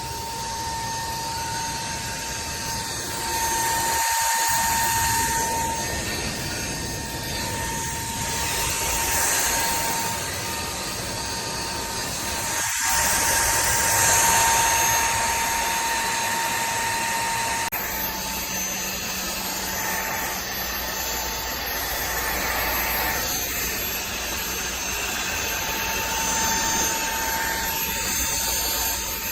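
TVTAU T10 Pro cordless stick vacuum running: a steady high motor whine over the rush of suction air. The level swells and falls back several times, and the sound changes abruptly about two-thirds of the way through.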